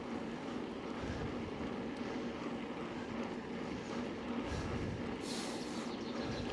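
Bicycle riding on a road: steady tyre and wind noise with a constant low hum, and a brief hiss about five seconds in.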